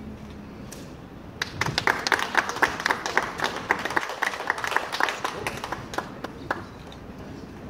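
A small group of people applauding, starting about a second and a half in and dying away about five seconds later.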